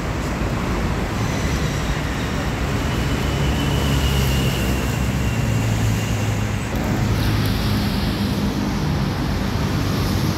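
Steady road traffic noise from a busy multi-lane road, with the low engine hum of a heavy vehicle swelling through the middle.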